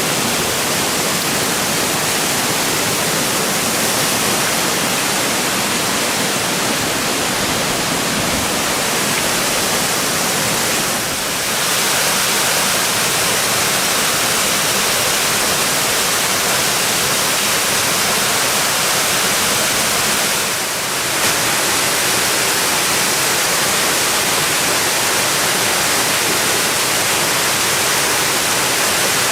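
Steady, loud rush of Biwa Falls' water pouring over the lip of the fall, dipping briefly about a third and two thirds of the way through.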